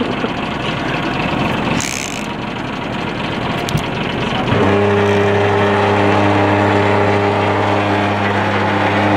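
Boat engine running steadily at low revs under wind and water rush on the microphone. About halfway through the rushing noise drops away and the engine's even, low hum stands out clearly.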